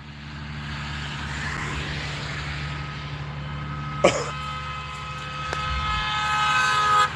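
A car horn held down on a passing car, starting faintly about halfway through and growing steadily louder as the car approaches. Underneath runs a steady low hum and the sound of the car going by, with a short sharp click about four seconds in.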